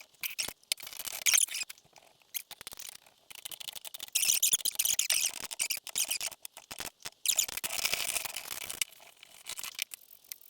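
Metal rifle scope tube being handled in a clamping jig: scattered clicks and knocks, with two spells of high squeaking and scraping, about four seconds in and again about seven seconds in.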